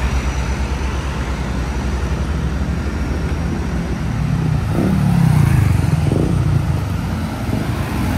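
Road traffic passing close: a steady low rumble of truck, car and motor-scooter engines and tyres. One vehicle passes louder about five to six seconds in.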